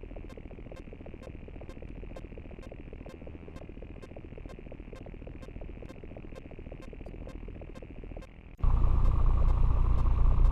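Electronic glitch sound effect: crackling low static with a regular tick about four times a second. About eight and a half seconds in, it cuts abruptly to a much louder, dense buzzing rumble.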